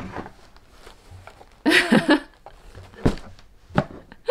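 Large cardboard gift box being handled and opened: a few sharp knocks and thumps, with a short vocal exclamation about two seconds in.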